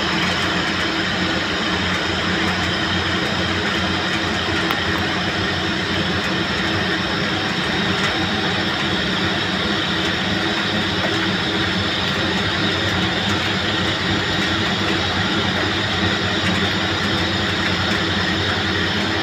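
CNC lathe dry-turning a metal shaft held between chuck and tailstock, a rough CNMG insert cutting with the coolant off. The spindle runs and the tool cuts with a steady, unchanging machining noise and a constant hum underneath.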